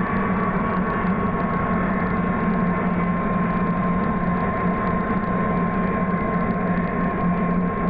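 Steady mechanical hum with a constant low tone and a higher whine, like a motor running at an even speed.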